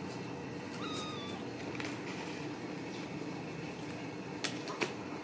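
Ragdoll kitten giving one short, thin mew about a second in. Two sharp clicks come near the end.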